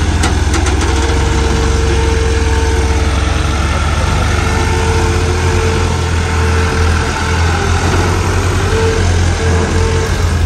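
Heavy diesel engine running steadily, with a higher tone that comes and goes over it.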